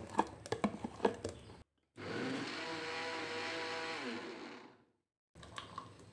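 Kitchen mixer grinder running for about two and a half seconds, blending half-frozen mango ice cream mix, its pitch sinking as it switches off. Before it, a few light clicks and knocks as the mix goes into the mixer jar.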